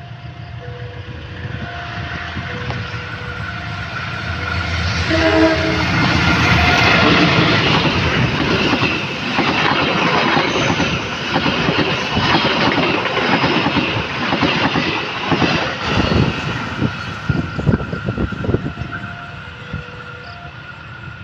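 Level-crossing warning signal alternating between two tones while a CC 201 diesel locomotive and its passenger coaches approach and pass, with a short horn blast about five seconds in. The passing train grows loud, its wheels clattering rapidly over rail joints, and the crossing signal is heard again near the end.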